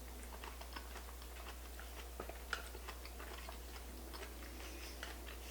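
A person chewing a mouthful of sushi made with cauliflower rice, close to the microphone: many small, soft wet clicks and smacks, with one sharper click about two and a half seconds in.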